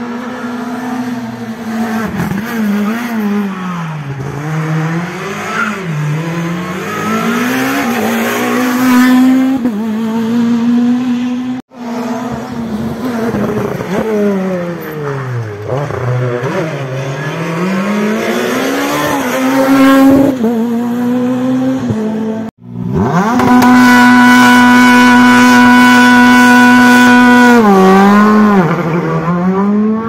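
Rally car engines revving hard, their pitch climbing and falling repeatedly as the cars brake and accelerate through hairpin bends, in three separate passes. In the last pass an engine is held at a steady high rev for about five seconds, then drops and wavers near the end.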